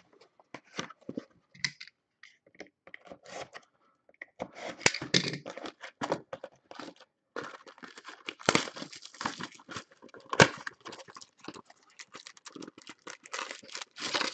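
Hands tearing open the plastic wrap and cardboard of a 2020 Bowman Chrome baseball card box: irregular crinkling and rustling, sparse at first and busier from about four seconds in, with a few louder rips.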